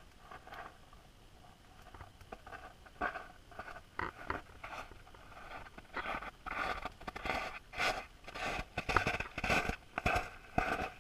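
Handling noise of an underwater camera as it is moved about: irregular scraping and clicking, sparse at first and much busier and louder from about six seconds in.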